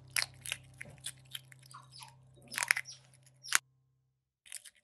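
Asian small-clawed otter chewing its food with its mouth open: a run of irregular crunches and smacks, the loudest a second or so before the sound cuts off abruptly, about three and a half seconds in.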